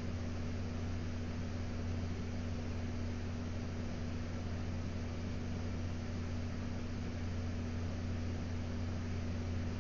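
Steady low hum under a constant hiss, unchanging throughout, with no distinct events.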